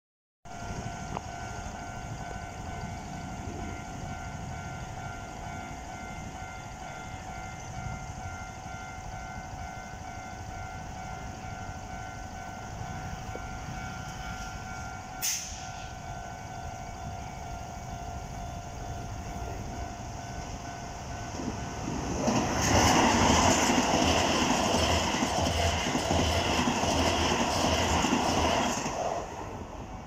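Japanese level-crossing alarm ringing steadily with its high tones, a single sharp click about halfway through. Then, for about seven seconds, the loud rumble of a Toei 5500-series electric train passing close by, its wheels clacking in a regular beat, before it fades.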